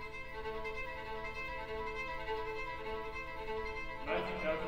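String orchestra holding a steady sustained chord. About four seconds in, a busier texture with voices comes in over it.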